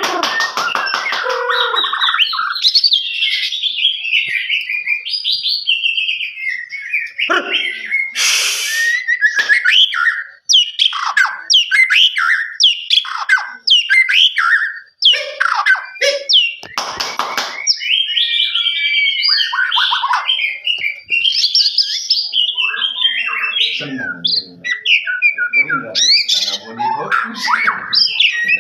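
Many birds chirping and singing at once, a dense overlapping mix of high chirps, trills and whistles, with some lower calls mixed in near the end. Twice a short harsh rasp cuts through.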